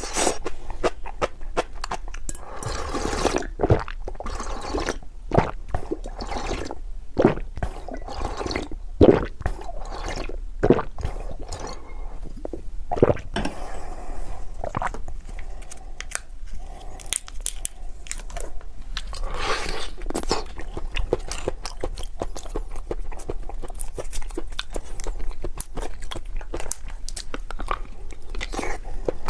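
Close-up eating sounds: sharp crunches of food being bitten, with wet chewing and squishing between them.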